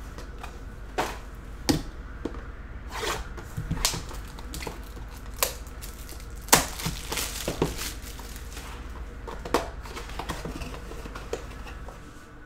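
Cardboard trading-card box and its plastic card packaging being handled and opened: scattered rustles, crinkles and light taps, over a steady low hum that fades near the end.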